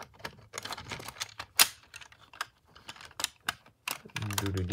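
Hard plastic panels of a Studio Series 44 Optimus Prime toy trailer clicking and clattering as they are pushed and worked back into place, a rapid string of small clicks with one sharper click about one and a half seconds in.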